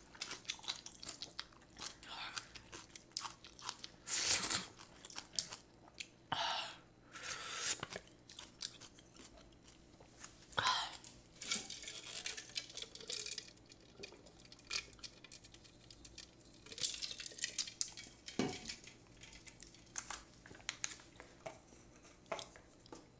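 Close-up eating noises of a person chewing a mouthful of instant ramen noodles: soft wet smacks and clicks throughout, with a few louder short slurps, the longest about six to seven seconds in.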